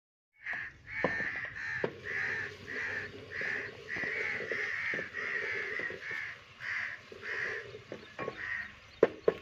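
Crows cawing over and over, about two harsh caws a second, with a few sharp knocks among them.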